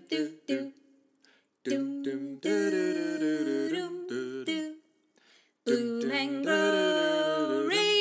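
Outro music carried by a wordless vocal melody, notes held and stepping in pitch, in phrases with short pauses about a second in and about five seconds in.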